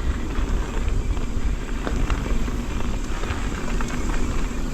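Mountain bike riding down a wet dirt trail: steady low wind rumble on the microphone with tyre noise on the dirt and a few light clicks and rattles from the bike.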